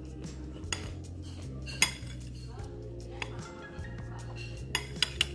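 A spoon clinking against a white ceramic bowl as a stir-fried vegetable dish is stirred and scooped: a few scattered clinks, the loudest about two seconds in, and three quick ones near the end.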